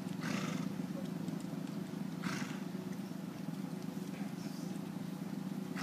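Short breathy snorts from cavalry horses, coming about every two seconds, over a steady low hum.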